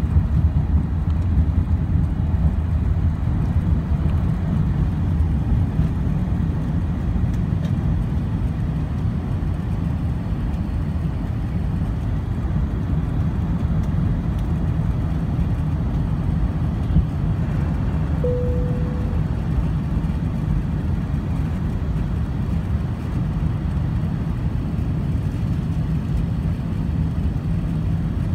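An Airbus A380's four Rolls-Royce Trent 900 engines at takeoff thrust, heard inside the cabin over the wing as a loud, steady, deep roar. The heaviest low rumble of the runway roll eases in the first few seconds as the aircraft lifts off and climbs. A single short tone sounds about two-thirds of the way through.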